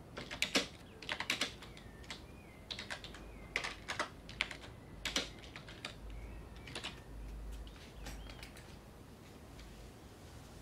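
Typing on a computer keyboard: irregular runs of key clicks, heaviest in the first half, with faint high chirps in the background.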